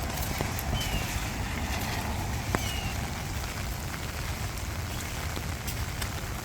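Steady rain falling, with scattered drops ticking on a surface and one sharper drop tap about two and a half seconds in. A few short high falling chirps sound over the rain.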